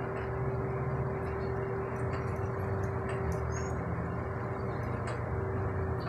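A steady mechanical hum with a constant mid-pitched tone over a low rumble, with a few faint, short high chirps and ticks scattered through it.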